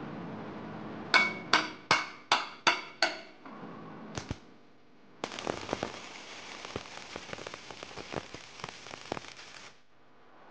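About a second in, six quick ringing knocks on metal, then one more; then from about five seconds in, a welding gun's arc crackles and sizzles steadily for about four and a half seconds, tack-welding a steel body-mount support to the truck frame.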